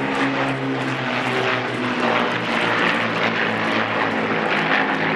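Two Avro Lancaster bombers flying past, the steady, deep drone of their Rolls-Royce Merlin V12 piston engines and propellers.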